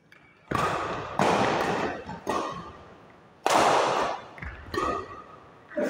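Badminton rackets striking a shuttlecock in a doubles rally: six sharp hits about a second apart, each echoing in a large hall.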